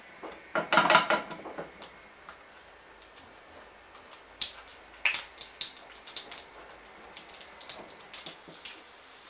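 Breaded chicken nuggets being laid into hot oil in a frying pan, sizzling and crackling as each piece goes in, loudest about a second in, with scattered pops after.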